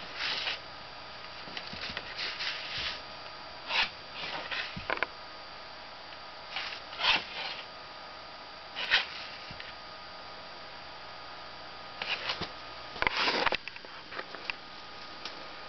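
A cat swiping and clawing at a paper wall poster: short, irregular rustles and scrapes of paper, with a longer cluster near the end, over a faint steady hum.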